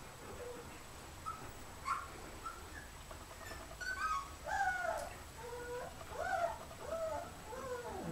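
Alaskan Malamute puppy whimpering and squeaking in short calls that bend up and down in pitch, coming thicker from about halfway.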